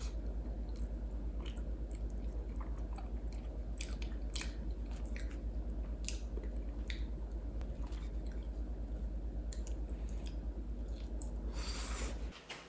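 Someone chewing food close up, with scattered small clicks and mouth sounds over a steady low electrical hum.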